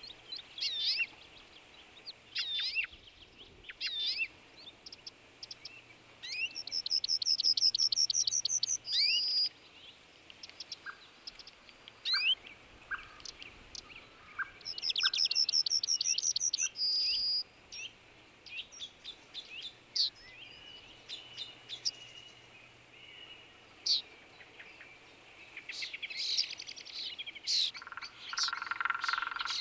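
Small songbirds singing and chirping. One bird twice gives a fast trill of repeated high notes that ends in a short held note, with scattered short calls from others around it.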